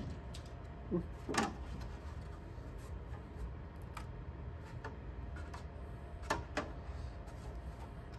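Thin flexible steel build sheet of a 3D printer being lifted off the bed and flexed to release a printed wing: a few sharp metallic clicks and knocks with some rubbing, loudest about a second and a half in and again twice past six seconds.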